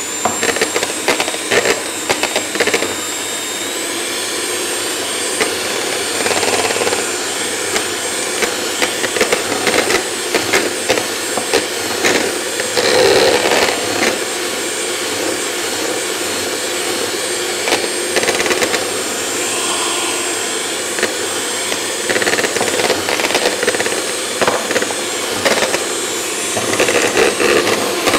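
Kenwood electric hand mixer running steadily with a high whine, its twin beaters whisking egg whites with caster sugar. Short clicks come through as the beaters knock against the plastic bowl. The whine steps up slightly a few seconds in.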